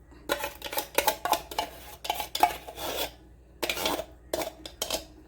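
A utensil scraping and clacking against the inside of a metal condensed-milk tin in quick irregular strokes, getting the last of the thick milk out.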